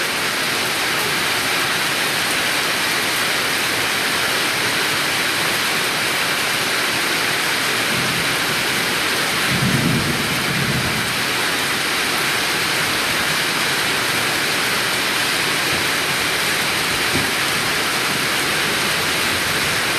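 Steady rain falling as a dense, even hiss, with a brief low rumble about halfway through.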